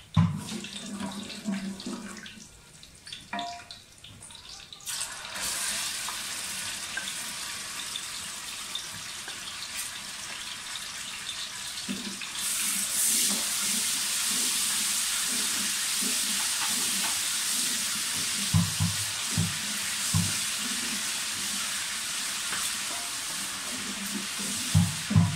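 Garlic-ginger paste sizzling in hot ghee and oil, a rushing sizzle that starts about five seconds in and grows louder about halfway as the paste is stirred with a wooden spoon. A few low knocks come from the spoon against the pot.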